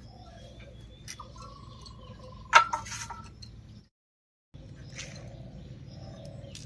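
Vegetables being cut by hand on a bonti blade, with a few faint clicks and birds calling in the background. One sharp clink about two and a half seconds in is the loudest sound. The sound drops out completely for about half a second after it.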